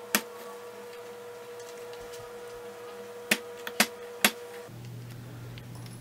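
Sharp clicks of a punch knocking metal terminal pins out of a plastic ATX power connector: one near the start, then four over about a second from a little past three seconds in.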